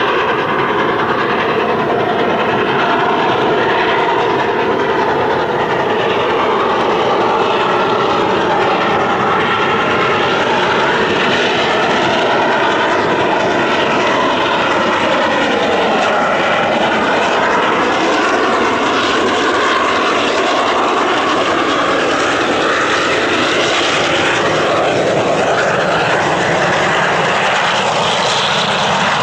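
A loud, steady mechanical drone with no beat, its pitch slowly wandering and falling in places.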